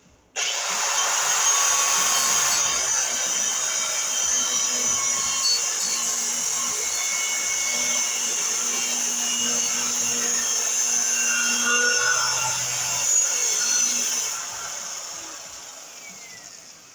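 A power tool cutting through a steel steering column, running steadily, then winding down and dying away over its last couple of seconds.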